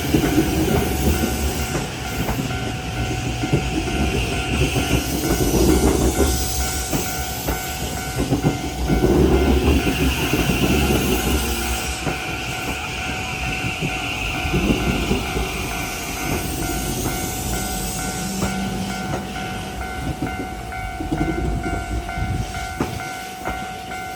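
Kintetsu 50000 series train passing over a level crossing, its wheels clattering and rumbling over the rails, with a high-pitched wheel squeal coming and going. The crossing's warning bells ring steadily throughout.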